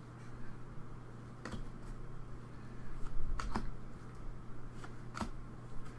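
Trading cards being handled and flipped through by hand, giving a few sharp clicks of card edges over a steady low hum.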